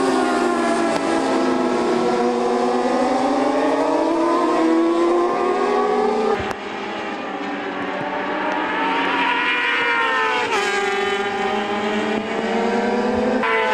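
Several racing motorcycle engines at high revs on a circuit, their pitch rising and falling as they accelerate and change gear. The sound drops abruptly about six and a half seconds in, then one engine climbs in pitch and falls away sharply about ten and a half seconds in.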